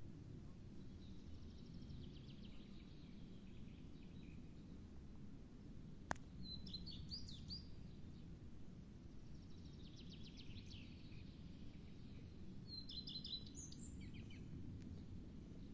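Faint songbirds singing: a descending trill twice, with shorter chirping phrases between them, over a low steady background rumble. A single sharp click about six seconds in.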